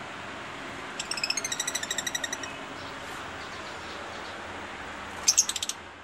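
Caged lovebirds calling: a rapid run of high chirps lasting about a second and a half, then a few louder, sharp chirps near the end.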